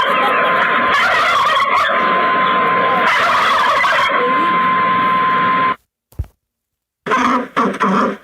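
Recording of domestic turkeys gobbling, a dense continuous run of gobbles played through a phone app's speaker, cutting off suddenly about six seconds in.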